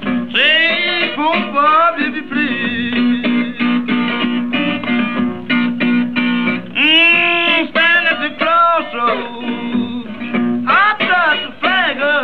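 1930s Delta blues record: a man's voice with acoustic guitar played with a bottleneck slide, gliding and bending notes over a steady repeated bass note. The sound is thin and cuts off above the upper middle, as on an old 78 transfer.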